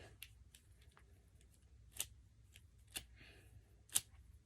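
Plastic Wacky Track fidget links clicking as they are twisted into new positions: a few sharp clicks, the loudest about once a second near the middle and end.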